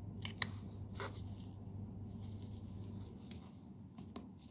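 Small clicks and scratchy plastic sounds as the cap of a plastic lotion bottle is twisted and worked open by hand, a few near the start and more about three to four seconds in. A low steady hum underneath stops about three seconds in.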